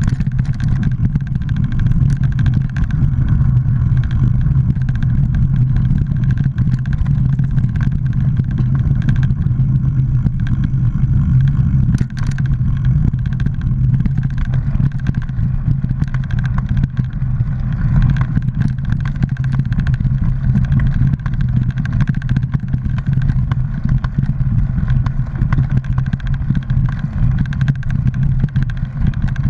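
A mountain bike riding a dirt singletrack, heard through a bike-mounted action camera: a steady low rumble of wind buffeting and tyres on dirt, with scattered clicks and rattles as the bike goes over bumps.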